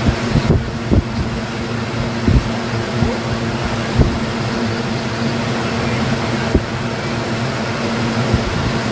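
A woman hiccuping, about eight short sharp hiccups at irregular intervals, over a steady fan hum.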